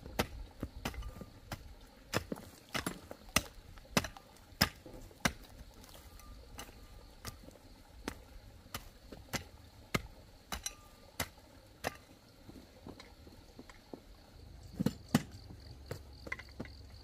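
Repeated sharp strikes at an even pace, a little under two a second, like chopping or knocking, pausing briefly near the end. A steady insect buzz, such as crickets, runs behind them.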